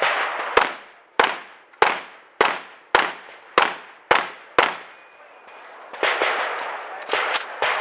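Rifle shots fired at a steady pace, eight shots about 0.6 s apart, then a pause of about a second and a half and two more shots fired in quick succession near the end.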